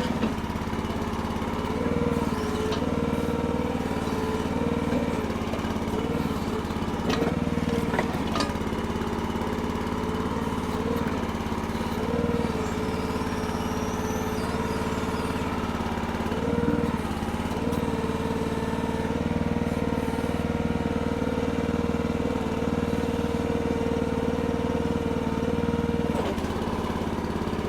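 Red Rock mini backhoe's small engine running steadily, with a whine that dips briefly several times as the machine is worked, and a few sharp knocks.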